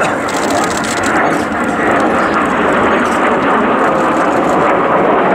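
Formation of four Kawasaki T-4 jet trainers flying over, a loud steady roar of their twin turbofan engines.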